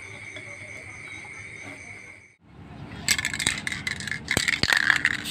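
Crickets chirping with a steady, slightly pulsing high trill. After a cut about two and a half seconds in, an acrylic spray-paint can is being shaken, its mixing ball rattling in loud irregular bursts, with a couple of sharp knocks.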